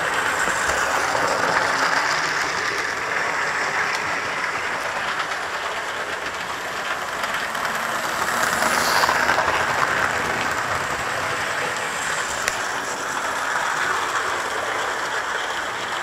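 Model diesel locomotives and the camera wagon running on model railway track: a steady whirring rattle of small motors and wheels on rail, a little louder about halfway through as a model Deltic passes close by.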